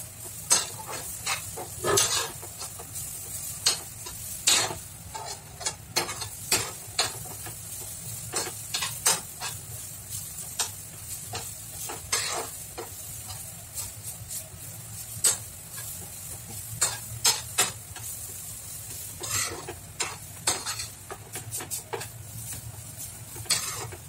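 A metal spoon stirs and scrapes grated coconut roasting in a frying pan, with irregular scrapes and taps against the pan.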